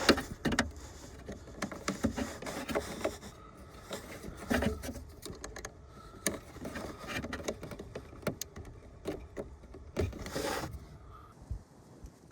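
Scattered plastic clicks, knocks and rustling of hands working at a car's fuse box, pulling a fuse. Short irregular clicks with quieter fumbling between them.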